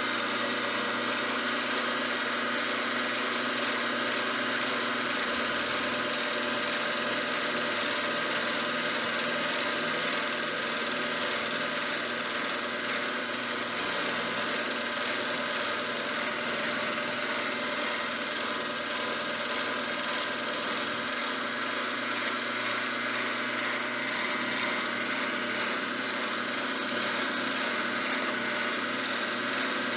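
Vertical milling machine running steadily with its end mill cutting a groove along a vise-jaw blank: an even machine tone with cutting noise over it, unchanging throughout.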